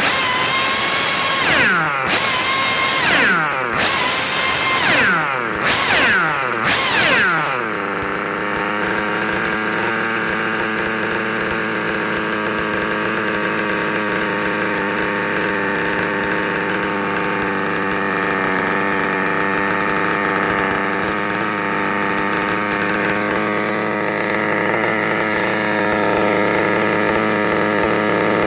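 Novarossi 28-7 nitro glow engine being run in, its throttle blipped in quick revs about once a second for the first seven seconds or so, each rev falling away. It then settles into a steady, even low-speed run.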